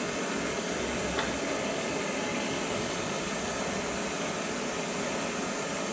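Hand-held gas torch burning with a steady hiss, set below full blast while it heats a cast-iron oil pump body. A light click about a second in.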